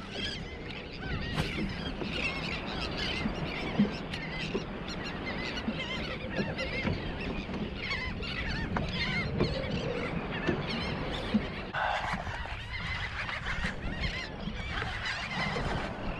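Many birds calling at once in short, arched cries, over a steady low background noise.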